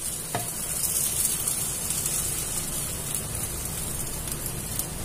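Beaten egg mixture sizzling steadily in a hot pan as it is poured in around the layered pathiri.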